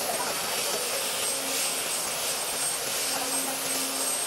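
Electric belt sander running steadily, its abrasive belt sanding the face of a large wooden slab.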